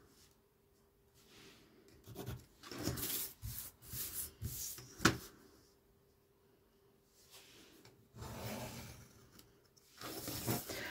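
A steel ruler and a sheet of paper sliding and rubbing on a tabletop, with pencil strokes along the ruler's edge, in short scratchy spells with pauses between. There is one sharp tap about five seconds in.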